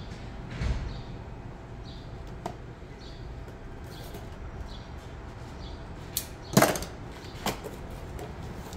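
Several knocks and clanks of hand tools and brake parts being handled during a rear brake job. The loudest knock comes about two-thirds of the way in, with a brief ring.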